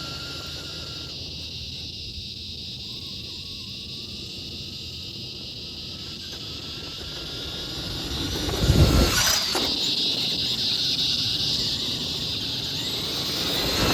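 Traxxas Summit RC truck's brushed electric motor and drivetrain whining steadily as it runs through sand. It gets louder from about eight seconds in, with a short loud rush about nine seconds in.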